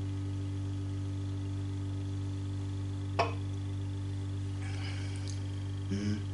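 Heat pump running with a steady low hum and several droning tones. A single sharp knock about three seconds in, and two small knocks near the end.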